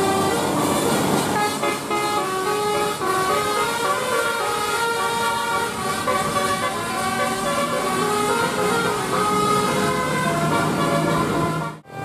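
Bus telolet horn, a multi-tone basuri air horn, playing a quick melody of stepping notes over engine and road noise. The sound drops out briefly near the end.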